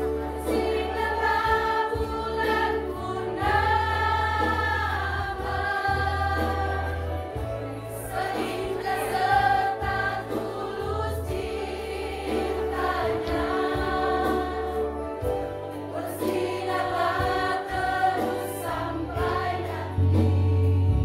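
A group of women singing together as a choir through microphones, over an amplified music accompaniment with a low bass line that changes note every second or two.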